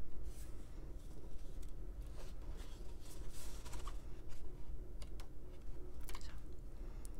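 Pages of a Folio Society hardcover book being turned by hand: several soft paper swishes and rustles, with light ticks from the pages and cover.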